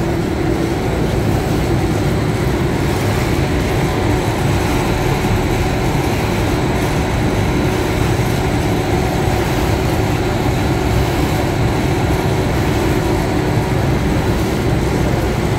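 Double-decker plastic bag bottom sealing and cutting machine with servo drive and conveyor, running steadily in production. It makes a loud, even mechanical noise with a low hum and faint high steady tones.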